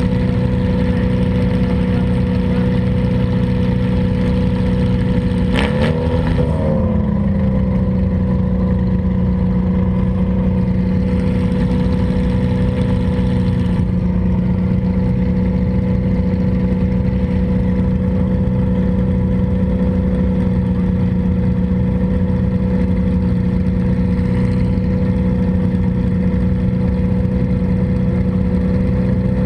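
Demolition derby car's engine running steadily at low revs. About six seconds in there is one sharp knock, and the engine note wavers briefly before it settles again.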